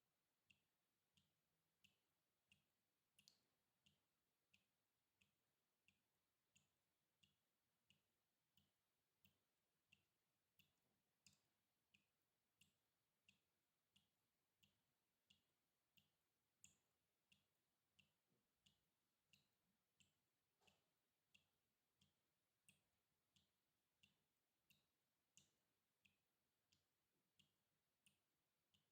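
Water dripping in a steady rhythm, about three drops every two seconds, each a short faint plip; a few drops are louder than the rest.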